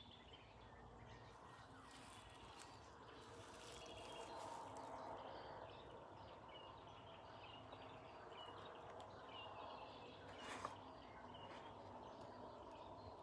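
Faint outdoor ambience with small birds chirping quietly in the background, and a brief noise about ten and a half seconds in.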